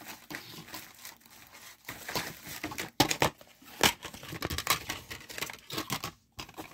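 A CD and its cardboard sleeve being handled: a run of crinkling and rustling with sharp little clicks and knocks, the loudest about three and four seconds in.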